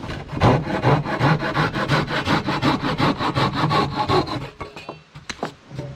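Japanese-style pull saw cutting through the end of a wooden batten with rapid, even strokes, about five a second. The sawing stops about four seconds in, followed by a few light knocks.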